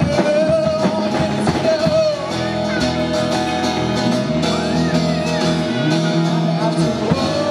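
Live rock band playing: a male singer holding long notes over acoustic guitar and a Sonor drum kit, with drum strokes heard mostly in the first two seconds.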